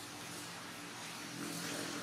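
An engine hums steadily under a constant hiss, growing louder about a second and a half in.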